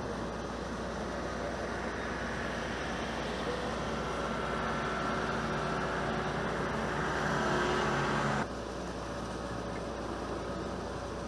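Steady mechanical noise with a low hum and faint steady tones, changing abruptly to a quieter, similar noise about eight and a half seconds in.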